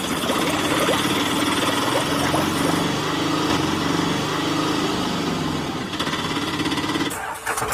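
Small engine running with a fast, rattling chug, an auto-rickshaw engine sound effect; it breaks off about seven seconds in.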